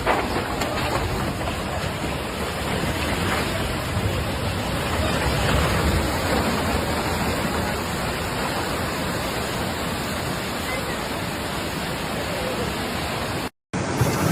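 Steady rushing noise, with a brief silence near the end.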